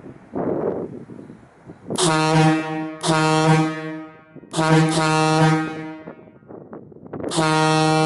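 Leslie A200 single-chime air train horn blowing one steady low note: two short blasts about two seconds in, a longer blast after a brief pause, then a long sustained blast starting near the end. Faint wind noise on the microphone precedes the first blast.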